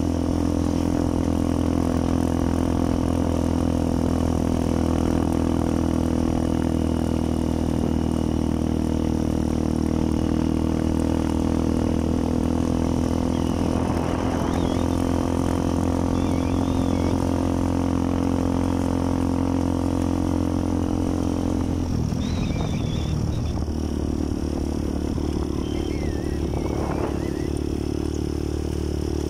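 Small motorcycle engine running steadily at cruising speed, heard from the seat of the bike. About three-quarters of the way through, the engine note breaks and shifts, then settles into a steady run again.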